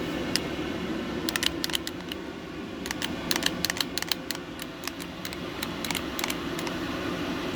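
Irregular light clicks and taps from handling the parts of a taken-apart Stihl MS 250 chainsaw. They come in clusters, thickest around the middle, over a steady background hum.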